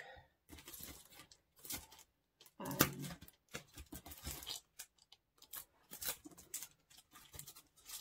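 Irregular rustling and small knocks of papers and plastic sleeves being rummaged through and handled.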